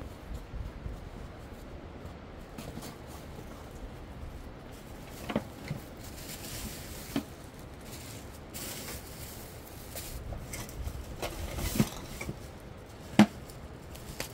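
A fish being worked free of a nylon cast net on bare rock: rustling and about four sharp knocks, the loudest near the end, over a steady low background rush.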